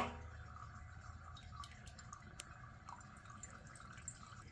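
Water trickling and dripping from a countertop dispenser's spout into a wine glass, faint, opening with a sharp click.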